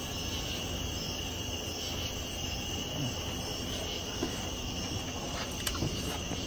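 Crickets chirping in a steady high trill, over a low steady hum, with a few faint clicks.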